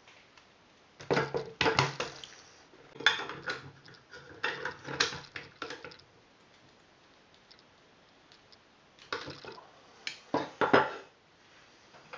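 Metal parts of an airsoft M4 rifle clinking and knocking against each other and the wooden tabletop as it is handled. The sounds come in several short clusters, a pause of about three seconds, then a final louder group.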